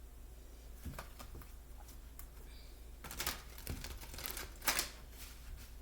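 Oracle cards being handled on a table: a few sharp taps and paper rustles, the loudest a little before the end, over a low steady hum.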